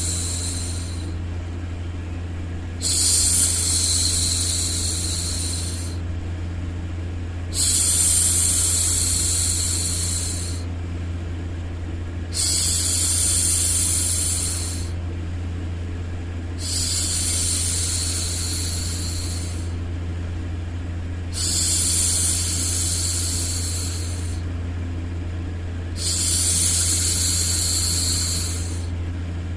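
A woman's drawn-out 'shhh' hushing sound, repeated about every four and a half seconds, each shush lasting two to three seconds. Under it runs a steady low white-noise hum.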